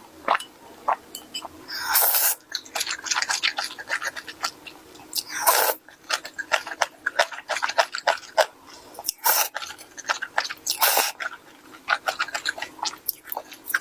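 Close-miked chewing of food, many small wet clicks, with a few louder crunching bites scattered through.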